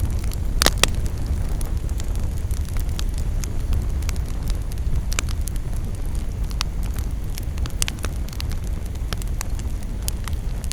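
Campfire burning: a steady low rush with frequent crackles and sharp pops, the loudest pop just under a second in.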